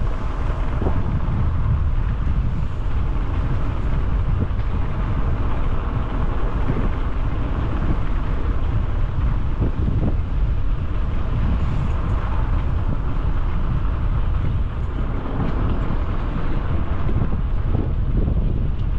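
Steady wind buffeting on a helmet-mounted GoPro 10's microphone from riding a bicycle, a continuous low rumble with a hiss above it.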